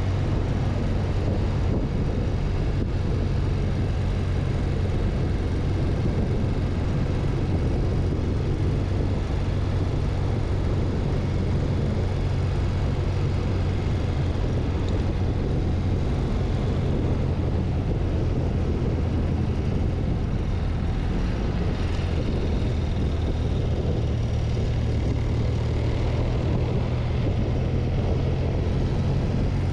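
BMW R100 CS air-cooled flat-twin boxer engine running at a steady cruise under way, heard from the rider's seat, with a constant low drone and no change in revs.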